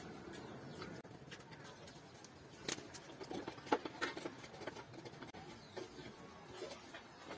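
Domestic pigeons cooing faintly, with a couple of sharp clicks near the middle.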